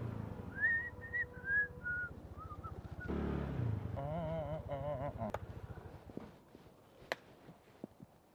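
A small engine running with a fast, even pulse that fades away after about six seconds. Over it comes a high, gliding whistle in the first few seconds, then a wavering tone, and a few sharp clicks near the end.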